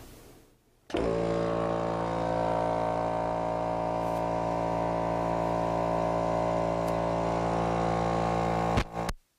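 Small 1.5 hp, 2-gallon Wood River electric air compressor starting up about a second in and running steadily, building tank pressure with an even mechanical hum. The sound cuts off suddenly near the end.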